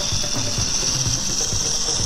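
Background music with a drum beat and a steady high hiss over it.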